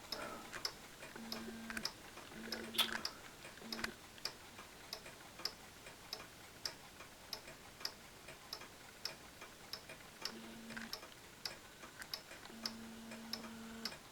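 Mechanical wall clocks ticking steadily, a little under two ticks a second, with a faint low hum coming and going.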